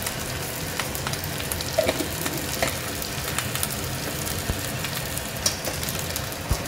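Rice frying in a wide metal wok over a full-high gas flame: a steady sizzle, with a few light clicks of the spatula against the pan.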